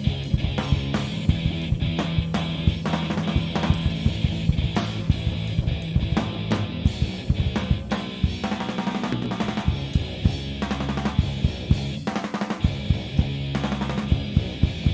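Live punk rock band playing an instrumental passage of a song without vocals, the drum kit driving a steady beat of kick drum, snare and cymbals under the rest of the band.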